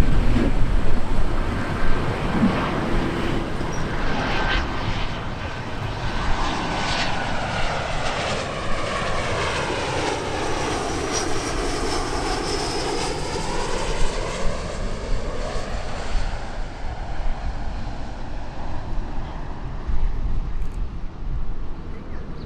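Jet airliner passing low overhead on landing approach, its engines running with a steady whine. A hollow, sweeping phasing effect is strongest as it passes closest, about halfway through.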